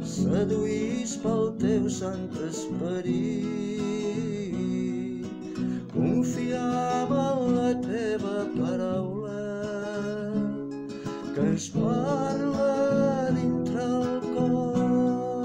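A Catalan liturgical song sung to acoustic guitar accompaniment.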